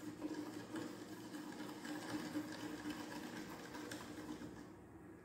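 A wooden stirring stick stirring salt into water in a plastic cup, giving faint irregular scraping and ticking over a steady low hum.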